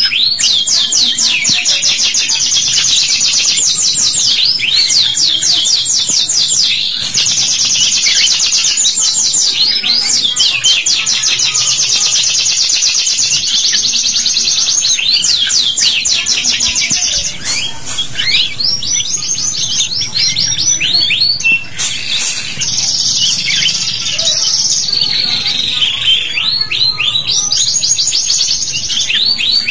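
Domestic canaries singing: long, fast trills of rapidly repeated high notes, broken by short pauses and scattered chirps.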